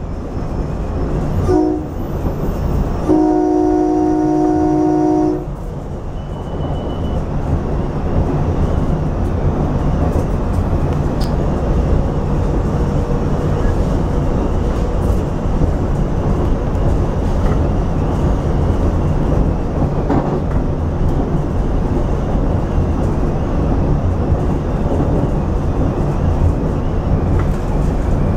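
Nathan K3LA three-chime air horn on a SEPTA Silverliner V electric railcar, sounded for a grade crossing: a short blast about a second and a half in, then a longer blast of about two seconds. After the horn the railcar runs steadily along the track, a continuous rolling rumble.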